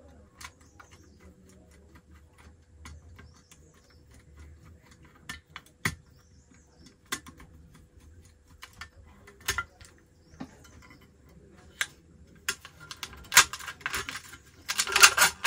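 Scattered small clicks and taps of hands working the LED driver circuit board and its wire connections loose inside a metal street light housing. In the last few seconds they turn into a dense clatter of metal and plastic.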